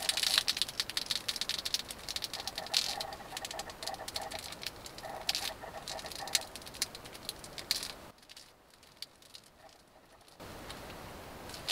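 Whipped cream squeezed from a plastic piping bag: a dense crackling and spluttering for about eight seconds, then it stops.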